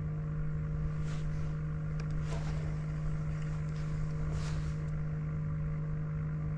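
Steady low electric hum with a few faint overtones, unchanging throughout. There are faint brief soft noises about one, two and four and a half seconds in.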